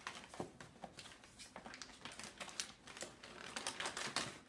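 Tissue paper and a paper gift bag rustling and crackling in quick, irregular bursts as a hand rummages through the bag, busiest near the end.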